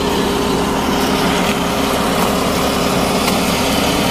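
A vehicle engine running steadily, an even hum with a few held tones and no change in speed.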